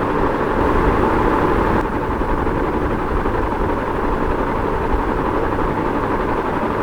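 Ceiling fan running steadily: an even whooshing noise with a low hum beneath it.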